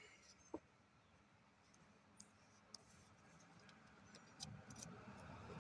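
Near silence with a few faint, scattered clicks and ticks, and a faint low rumble building up near the end.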